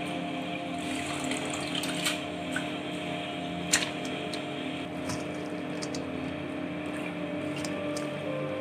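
Water being wrung by hand out of soaked, shredded banana stem, dripping and splashing into a steel bowl, with a few light taps, over a steady hum.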